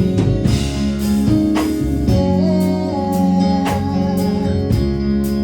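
Gospel worship band music between sung lines: guitar over sustained chords, with a steady beat.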